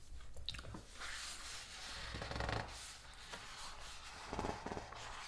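Paper pages of a large hardcover book being handled and turned: rustling and sliding paper in two spells, about a second in and again near four seconds.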